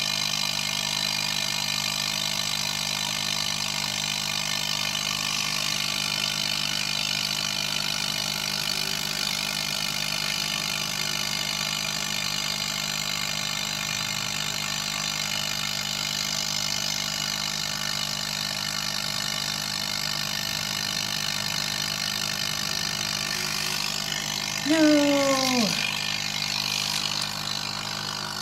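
Small electric air pump humming steadily as it pushes air down a tube into slime, inflating it into a bubble. Near the end, a louder falling squeal lasting about a second cuts in.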